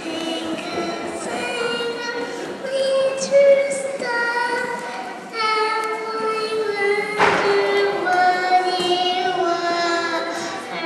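A young girl singing a slow melody into a handheld microphone, holding each note before stepping to the next.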